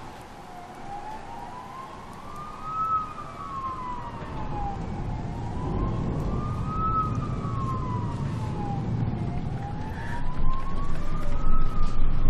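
An emergency-vehicle siren wailing, rising and falling slowly about every four seconds, over a low rumble that grows louder near the end.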